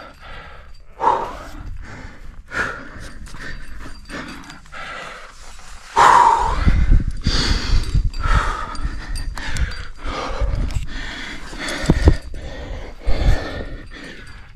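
A climber breathing hard, a run of panting breaths and sighs about one a second. There are low rumbling thumps about six and twelve seconds in.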